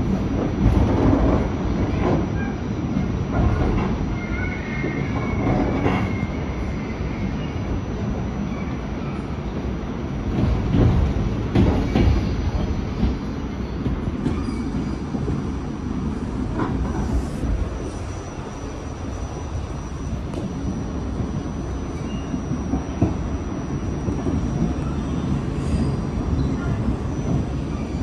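R46 subway car running on the track, heard from inside the car: a steady rumble with wheels knocking over rail joints now and then and squealing at times.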